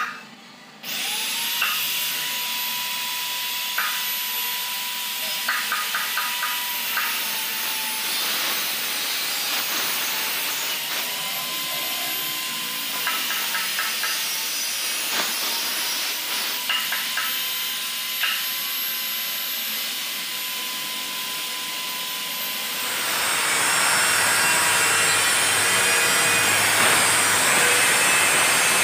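A power tool's motor whining at a steady pitch after spinning up about a second in, the pitch sagging and recovering now and then, with short runs of rapid clicking. Near the end it gives way to a louder, deeper rushing noise.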